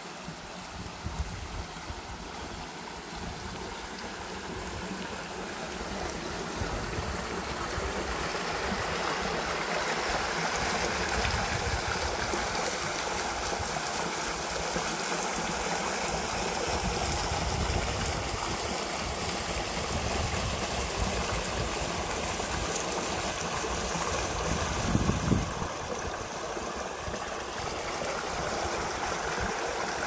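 Small shallow forest stream babbling over stones, a steady rush of water that grows louder over the first several seconds. A brief thump about 25 seconds in.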